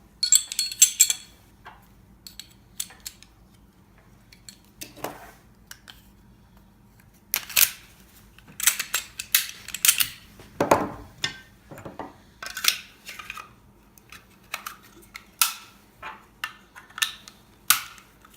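Compact semi-automatic pistol parts being reassembled by hand: a series of sharp metallic clicks and clacks as barrel, recoil spring and slide are fitted back onto the frame, sparse at first and coming faster about halfway through, with one heavier knock.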